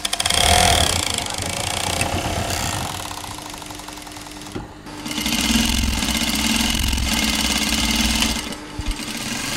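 Sewing machine stitching in runs: a fast, even mechanical chatter near the start, a quieter stretch, then a longer, louder run from about halfway that stops shortly before the end.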